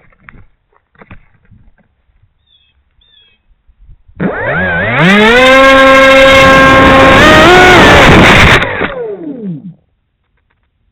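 Battery-powered electric motor and propeller of a radio-control plane throttled up: the whine rises in pitch over about a second, holds steady, steps up briefly near the end, then winds down and stops.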